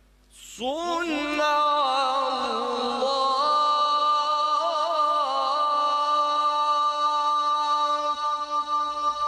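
A man reciting the Quran in melodic tajweed through a microphone and PA. After a short pause he opens a long phrase with ornamented turns of pitch, then holds one long steady note.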